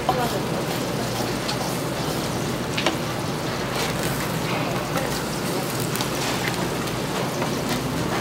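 A kitchen knife slicing sundae (Korean blood sausage) on a wooden cutting board. The blade gives a few sharp taps on the board over a steady hiss.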